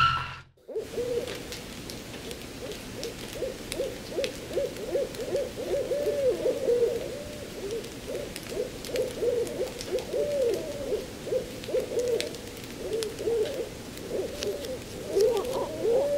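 After a moment of silence, owls hooting over and over, short rising-and-falling hoots following one another and at times overlapping, as in a night ambience sound effect.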